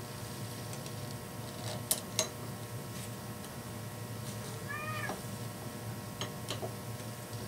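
A house cat meows once, a short call that rises and falls, about five seconds in. Two sharp clicks of parts being handled come about two seconds in, with a few fainter clicks later, over a steady low hum.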